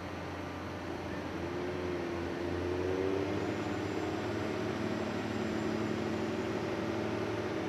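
Heavy steel-mill machinery running: a steady drone with a low hum. A motor whine rises about a second in, then holds a steady pitch.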